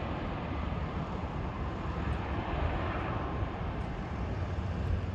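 Twin-engine jet airliner on approach with its landing gear down, its engines making a steady rumble as it flies past and away.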